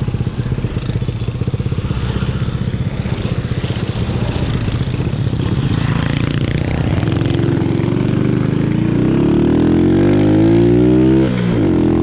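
Honda C90's small single-cylinder four-stroke engine running at low revs, then pulling away: the revs climb over several seconds, drop sharply at a gear change near the end, and climb again.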